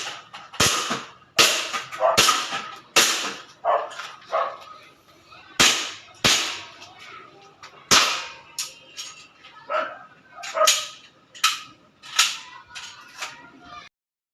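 WE gas blowback airsoft gun firing a string of single shots, roughly one every second or less at uneven intervals, with fainter clicks and taps between the shots. The sound cuts off near the end.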